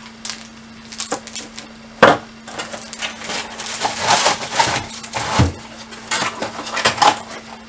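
Small light stand in its plastic bag being handled: plastic rustling and crinkling, with scattered knocks and clatter against the tabletop and one sharp knock about two seconds in.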